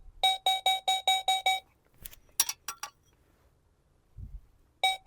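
Revealer Plus metal detector sounding a rapid run of identical electronic beeps, about four or five a second, as a target (the copper plate) passes over its coil, with all metals still being signalled. A few short clicks follow in the middle, then a faint low thump, and another run of beeps starts near the end.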